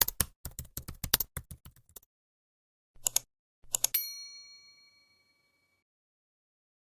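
A rapid run of key-like typing clicks, a pause, a few more clicks, then a single bell ding about four seconds in that rings out for about two seconds.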